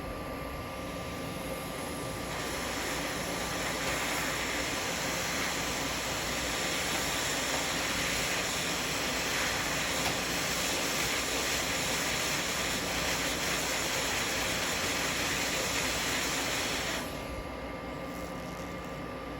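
Hot air rework station blowing a steady hiss of air, growing louder about two seconds in and dropping off near the end, as it heats solder paste on the A11 CPU to reball it.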